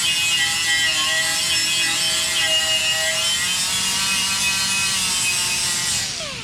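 A small high-speed grinder with an abrasive disc runs with a steady whine, grinding down TIG weld build-up on a damaged aluminum wheel lip. Its pitch wavers under load, and it winds down near the end.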